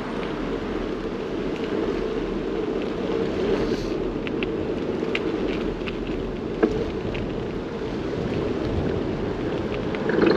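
Steady rushing noise of riding a bicycle along a road, wind and tyre noise, with light rattles and one sharp knock about two-thirds of the way through.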